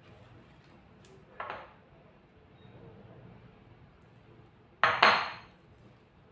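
Kitchen utensils clattering against a bowl or dish twice: a short clink about a second and a half in, then a louder double clatter near the five-second mark.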